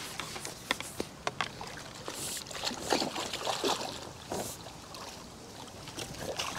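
Hooked fish splashing and thrashing in shallow water among reeds, in irregular bursts, with a few sharp clicks in the first second and a half.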